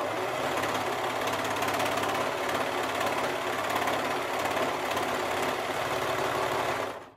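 Brother 1034D serger (overlock machine) running steadily under the foot pedal, sewing a test seam on a knit scrap while its blade trims the edge; it stops near the end.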